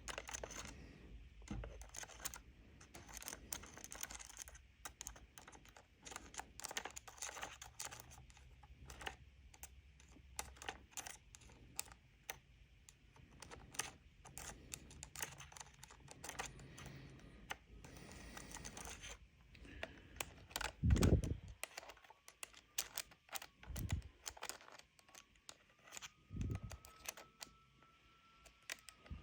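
Small screwdriver clicking and scraping against the radio control head's lock rings as they are worked off their threads: many light, irregular clicks, with a few dull thumps about two-thirds of the way through.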